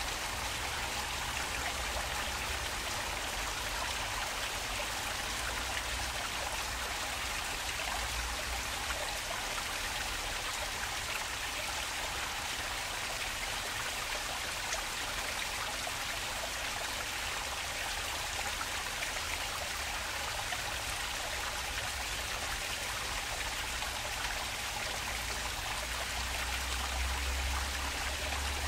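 Park stream water flowing and splashing steadily, an even rushing trickle. A low rumble swells under it near the end.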